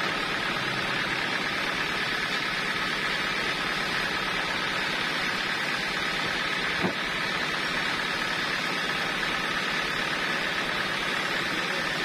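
Homemade band sawmill running idle, not cutting: a steady machine hum with a constant whine, and one sharp knock about seven seconds in.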